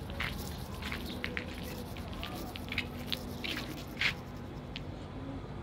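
Footsteps crunching on gritty concrete: a string of irregular small clicks and scuffs, the loudest about four seconds in.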